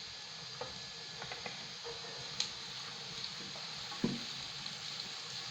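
Onions, garlic and ginger frying in palm oil in a pot: a steady sizzle, with a few light clicks and one sharper knock about four seconds in.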